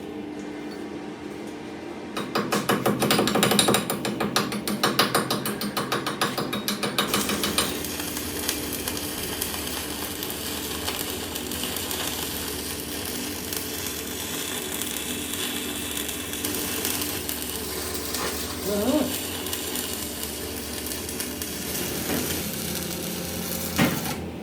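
Workshop machinery: a loud run of fast rattling clicks starts about two seconds in and lasts about five seconds, then gives way to a steady mechanical running noise with a low drone and an occasional knock.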